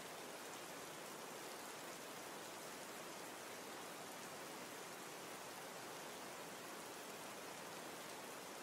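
Steady, even hiss with no other sound: the background noise of a silent recording.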